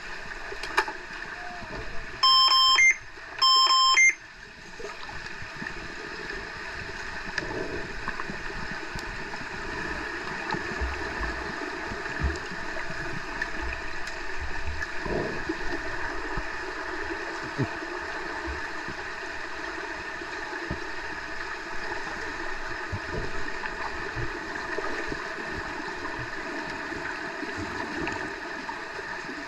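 Two short, loud electronic beeps in quick succession from an underwater hockey signalling sounder, heard through the pool water, followed by steady underwater noise of water movement, bubbles and small knocks from the players.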